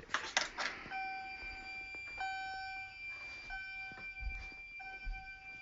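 Fire alarm system going into alarm after a smoke detector is tripped. After a few clicks, about a second in, a steady high electronic tone starts, together with a lower electronic tone that cuts out briefly about once a second.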